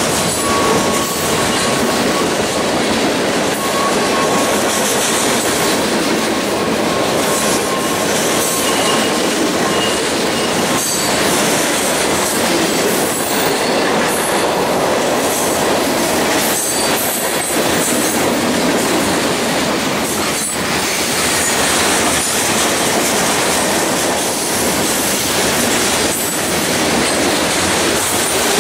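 Freight cars of a long mixed freight train rolling past close by: steady noise of steel wheels on the rail, with occasional clacks and brief faint wheel squeals.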